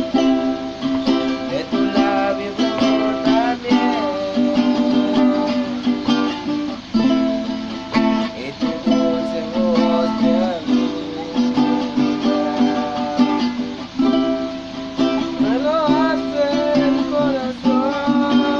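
Acoustic plucked-string music: a melody played over sustained chords, with the melody line bending and wavering in pitch.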